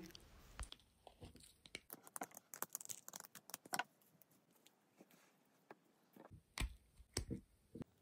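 Faint, scattered clicks and soft sticky sounds of rubber-gloved hands picking slime off a plastic toy dragon's head and fitting the plastic parts together.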